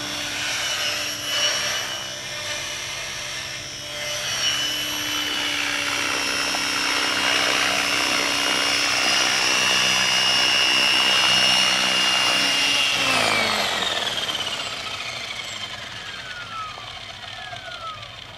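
Align T-Rex 550 electric RC helicopter running close to the ground, with a steady high motor whine and rotor hum. About thirteen seconds in, the power is cut, and the whine and rotor sound fall steadily in pitch and fade as the rotor spins down.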